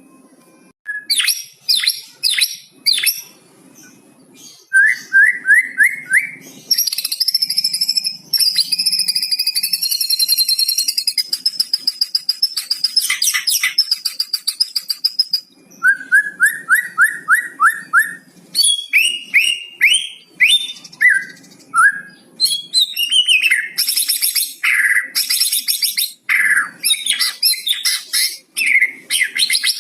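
White-rumped shama (murai batu) singing a loud, varied song that includes imitations of the cucak cungkok's calls. It runs through quick rising whistled notes, a long high warble, and rapid chattering phrases.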